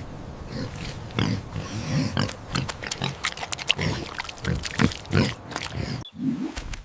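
Pig grunting over and over in short, low, irregular grunts, about two a second, which stop abruptly shortly before the end.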